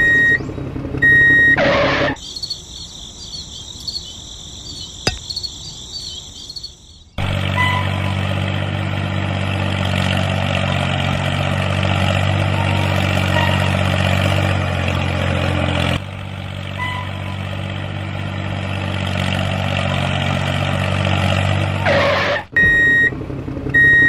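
Tractor engine running steadily, starting about seven seconds in and cutting off shortly before the end. Before it come a few short high beeps, a whoosh and a high whirring hiss.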